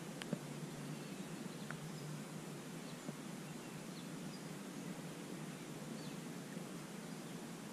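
Faint steady outdoor background hiss with a few faint, short bird chirps.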